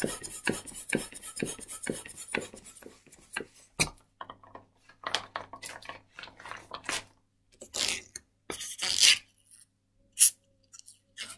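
Hand balloon pump and a 260Q latex modelling balloon being handled: a quick run of small clicks and rubbing for the first three or four seconds, then scattered rubs and squeaks of the latex.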